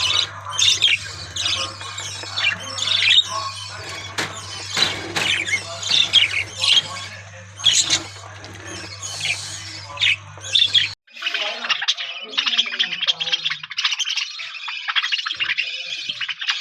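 A flock of budgerigars chattering, with sharp squawks over a continuous twittering warble. A low steady hum underneath cuts off about eleven seconds in, after which the twittering runs on denser and more even.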